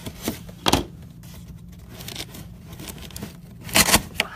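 Packaging being torn and crinkled open by hand: short sharp tearing and rustling bursts, a strong one about a second in and the loudest cluster near the end.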